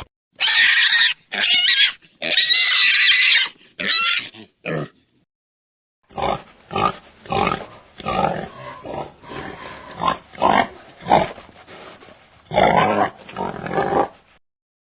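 Wild boar squealing in several short high-pitched calls, then after a pause a run of short grunts, about two a second, ending with a longer grunt near the end.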